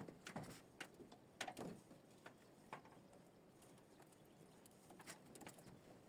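Near silence, broken by a handful of faint, short taps or clicks, irregularly spaced, mostly in the first three seconds and again about five seconds in.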